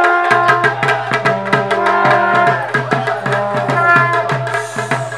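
Music with fast, evenly spaced drumming under a held, sustained melody line.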